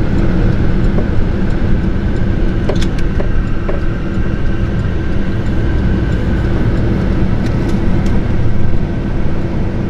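GMC Denali pickup truck on the move: a steady drone of engine and tyre noise with a faint constant whine above it.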